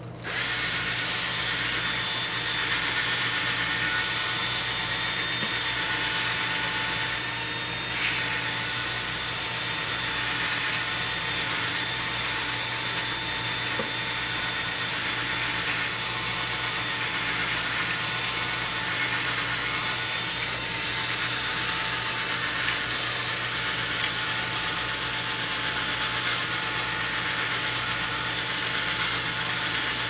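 Cordless drill-driver starting up and running steadily, spinning a rusty fan shaft while dry wet-and-dry sandpaper is held against it to scour off the rust: a steady motor whine over a scratchy sanding hiss, with one brief click about eight seconds in.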